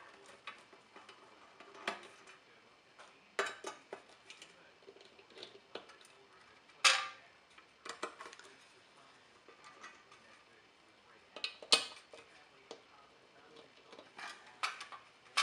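Metal cover plate on a Fairchild F800 flight data recorder's tape drive being unscrewed and lifted off: scattered metallic clinks and clatters of screwdriver, screws and plate, the two loudest about seven and twelve seconds in.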